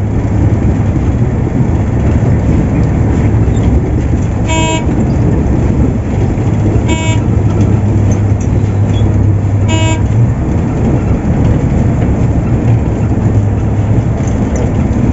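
Steady drone of a Volvo 8400 city bus's engine and road noise heard from inside the cabin, with three short horn toots about two to three seconds apart, the first about four and a half seconds in.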